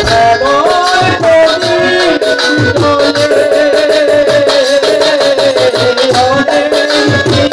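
Live Bengali baul folk song: a male singer holds a long, wavering melodic line over a steady beat of hand drums.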